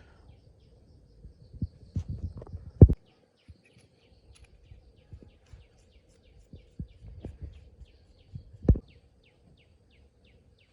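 Scattered low knocks and handling bumps as the small internal parts of a diesel fuel injector are handled for reassembly, the loudest near three seconds in and again near nine seconds. A regular run of high chirps, about three a second, sounds in the background.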